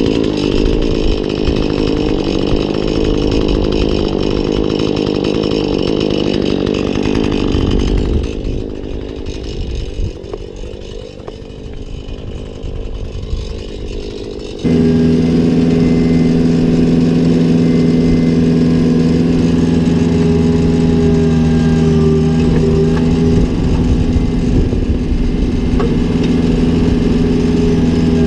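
Husqvarna chainsaw running loud and rough, easing off about eight seconds in. About halfway through it gives way abruptly to a different engine running at a steady speed with an even hum.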